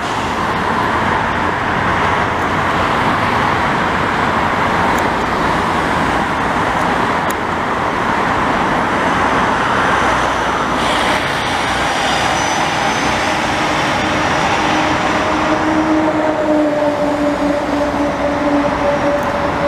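Steady roar of city road traffic mixed with a diesel-hauled commuter train rolling along an elevated line. A steady engine hum comes in about two thirds of the way through.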